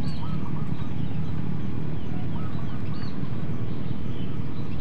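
A steady low rumble, with birds chirping over it in short high calls scattered throughout.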